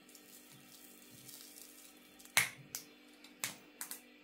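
A spoon knocking against a container as salt is spooned in for pickle brine: about five sharp clicks, starting a little past two seconds in.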